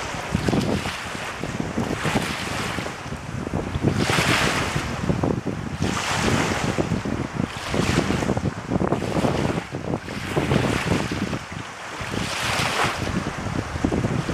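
Strong, gusty wind rumbling on the microphone, with choppy lake waves washing at a rocky shore; the hiss swells every couple of seconds.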